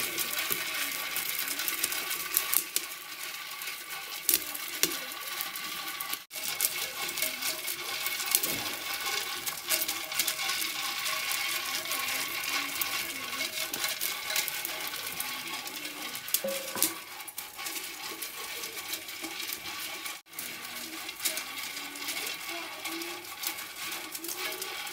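A bundle of thin bamboo sticks stirring grains in a small black pot, making a constant irregular clicking and scraping. Behind it is the steady hiss and crackle of a wood fire under the pot.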